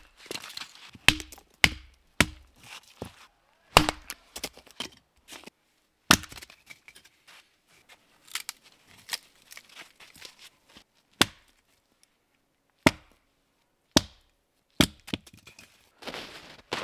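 Hatchet splitting firewood: about a dozen sharp, irregularly spaced chops, with smaller cracks of splitting wood between strokes.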